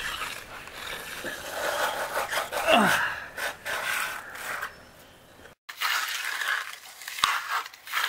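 A hand concrete groover dragged through the fresh, wet slab, rasping steadily as it cuts a control joint. After a brief break, more scraping of a hand tool over the wet concrete follows.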